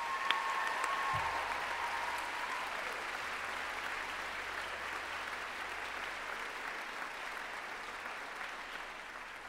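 Audience applauding steadily, slowly fading toward the end.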